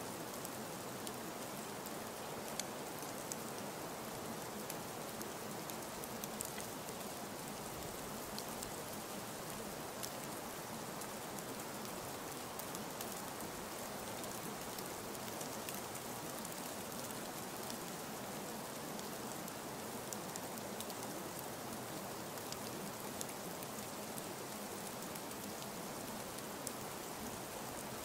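Steady rainfall: an even hiss of rain with many small, scattered drop ticks.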